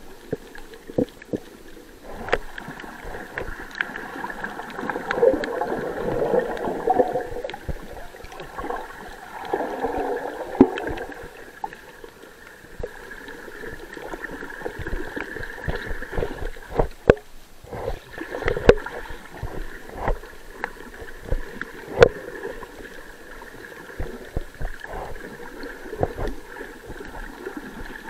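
Underwater sound picked up by a submerged camera: muffled water sloshing and gurgling that swells a couple of times, with scattered sharp clicks throughout.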